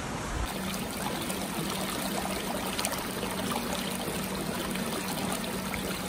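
Steady rush of running water.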